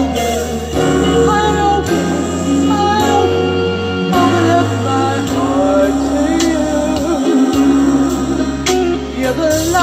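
A woman singing live into a microphone over an instrumental backing track with held bass notes, played through a PA speaker.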